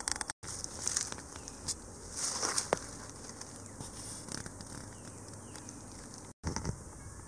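Irregular rustling and crackling of dry leaves and twigs underfoot and under handling, as someone shifts about on a leaf-littered forest floor. The sound cuts out briefly twice.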